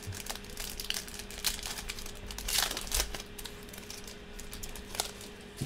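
Foil trading-card pack wrapper being crinkled and crumpled by hand: an irregular run of crackles, loudest about halfway through.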